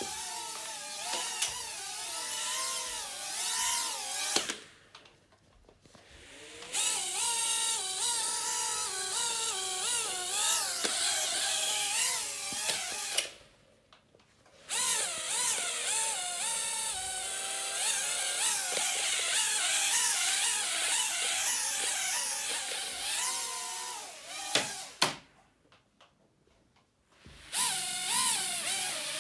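Hubsan H107C+ mini quadcopter's four small motors and propellers whining, the pitch wavering up and down as the throttle changes. The whine cuts out three times for a second or two as the drone comes down, with short knocks just before the first and last stops.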